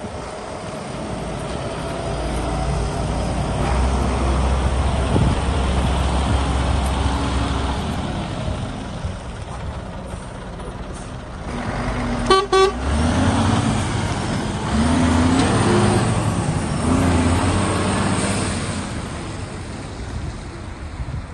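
Scania P94 310 truck's diesel engine running as the truck drives by, with a short horn toot about halfway through. The revs then rise and fall three times as it pulls away.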